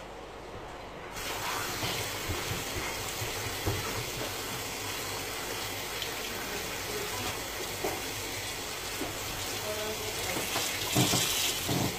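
Kitchen tap turned on about a second in, water running steadily into the sink while dishes are washed under it, with a few knocks of dishes near the end.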